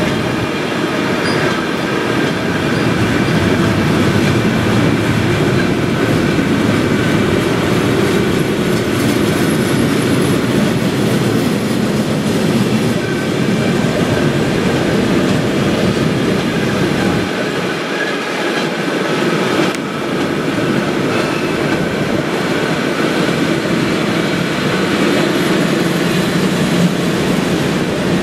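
A train rolling past on the rails, its wagons rumbling steadily for the whole stretch, with thin high squeal tones from the wheels above the rumble.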